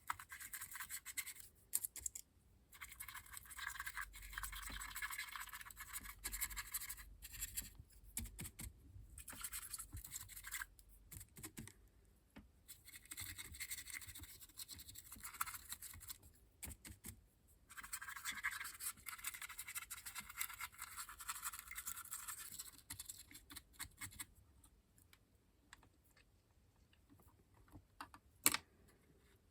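A brush scrubbing weathering pigment powder onto a model locomotive's bodywork, a faint scratchy rubbing in stretches of a few seconds with short pauses. It stops a few seconds before the end, and two light knocks follow near the end.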